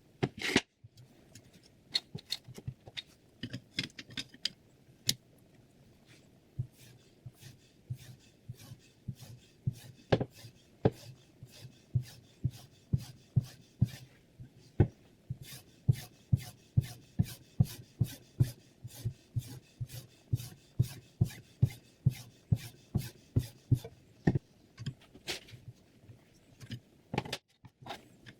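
Knife blade being sharpened on a whetstone: a run of short scraping strokes, about two a second.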